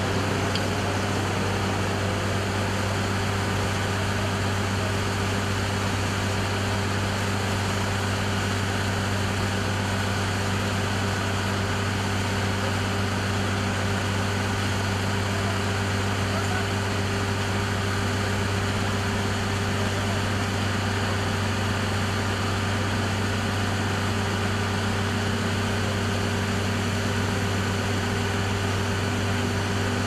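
TOMA water-cannon truck's engine and water pump running in a steady low drone while its roof cannon sprays a jet of water, with an even hiss of spray over it.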